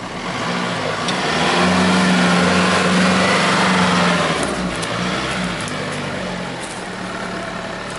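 Nissan Patrol's engine pulling under load as the 4x4 climbs a steep muddy slope: it builds about half a second in, is loudest for a few seconds, then eases back to a steadier, lower run.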